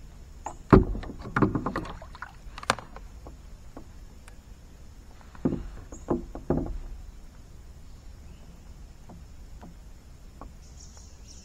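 Knocks and clatter against a kayak hull, in two bouts: one about a second in, the other around five and a half seconds in. They come as a just-caught bream is swung in and handled for unhooking.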